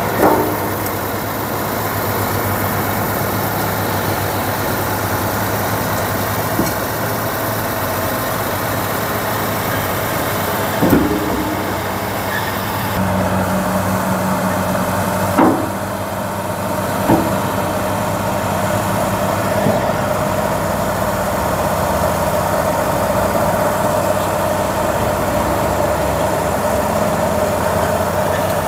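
Caterpillar D6T XL crawler bulldozer's diesel engine running steadily under work. A few short, sharp knocks stand out, and a steady whine grows louder about halfway through.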